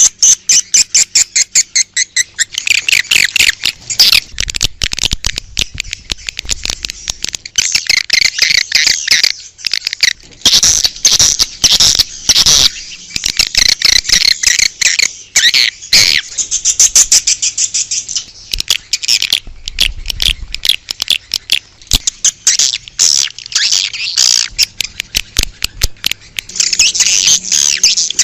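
Swiftlet lure call: many swiftlets chirping and twittering rapidly and densely, high-pitched, swelling and thinning in waves. It is the kind of recording played outside a swiftlet house to draw swiftlets in to nest.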